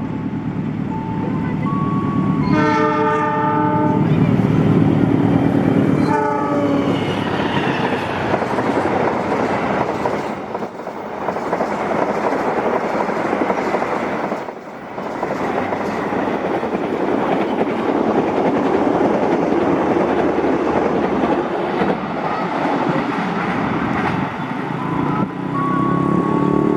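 Indonesian passenger train at speed sounding its multi-tone locomotive horn in several blasts; the horn's pitch drops as the locomotive passes. It is followed by the long, loud rush and rumble of the coaches passing through the station, with a brief lull partway through.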